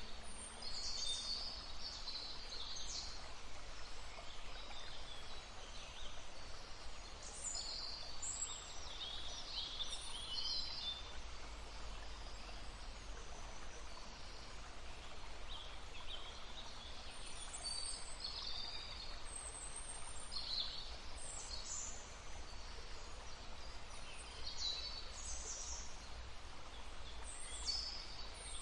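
Small songbirds singing short, high chirping phrases in clusters every few seconds over the steady murmur of a flowing brook.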